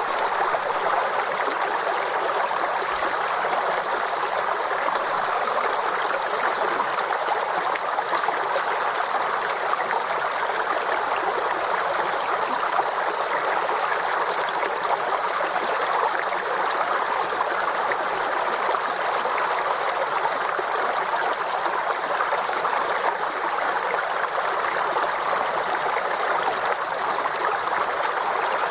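Forest stream: water running and burbling over stones, a steady rush without breaks.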